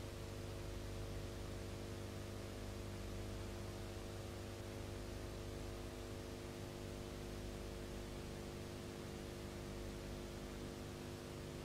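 Steady electrical mains hum with constant hiss, the empty soundtrack of a silent film transfer; no sound from the yacht or sea is heard.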